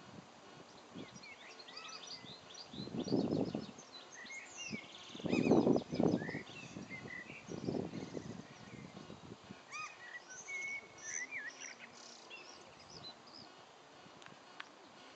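Small songbirds singing, with many quick high chirps and short trills throughout. Three louder, low, muffled rumbles come about three, six and eight seconds in, each lasting about a second.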